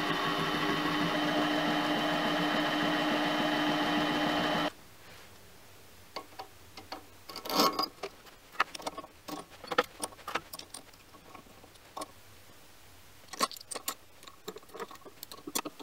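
Mini lathe motor and spindle running steadily with a cast compound-slide part clamped off-centre in the chuck, cutting off abruptly a little under five seconds in. After that come light metallic clicks and clinks as washers and nuts are handled and fitted to the chuck as a counterweight.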